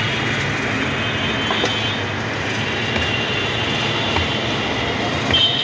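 Steady din of busy street traffic around a roadside food stall, with a few faint clicks and a short high-pitched sound near the end.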